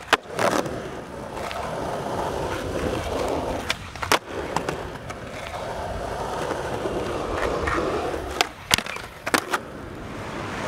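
Skateboard urethane wheels rolling steadily on smooth pavement, broken by several sharp clacks of the board popping and landing: near the start, around four seconds in, and a few close together around nine seconds.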